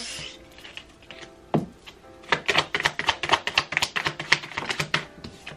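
A tarot deck being shuffled by hand: a single card snap about a second and a half in, then a quick run of rapid card flicks lasting about three seconds.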